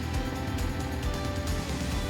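Background music with steady held tones, over a Bobcat mini excavator's engine running at idle.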